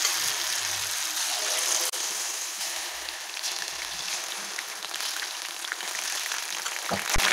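Chilli-marinated mushroom pieces deep-frying in a kadai of hot sunflower and coconut oil: a steady hissing sizzle full of fine crackles as more pieces are spooned in. A couple of low thumps near the end.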